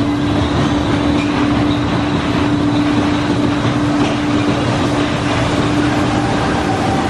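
Big Thunder Mountain mine-train roller coaster rumbling along its track, a loud steady noise with a steady hum that stops near the end.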